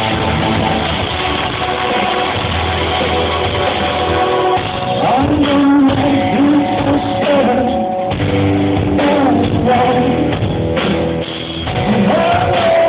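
Rock band playing live, with singing over guitar and drums.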